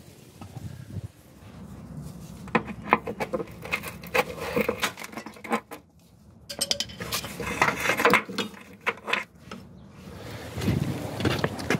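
Metal hand tools clinking and knocking against metal in scattered bursts of sharp clicks, as the old ABS sensor cable is worked free from the van's underside.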